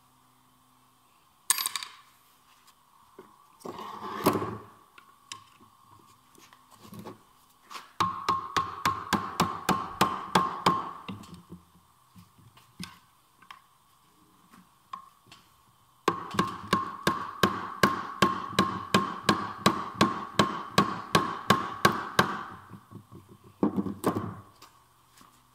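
Steel hammer blows on a manual gearbox being stripped for a bearing replacement: a couple of single knocks, then two runs of quick, even taps at about four to five a second, over a faint steady background tone.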